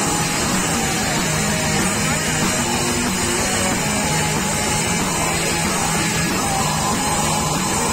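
Heavy rock band playing: electric guitars, bass guitar and drums, at a steady, full level.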